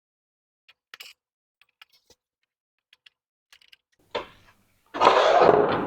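Plastic printer cover panels being fitted: scattered light clicks and taps, a sharper knock about four seconds in, then a loud scraping rustle near the end.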